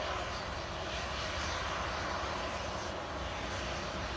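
Jet engines of a Delta airliner taxiing on the runway: a steady, even engine noise with a low rumble underneath.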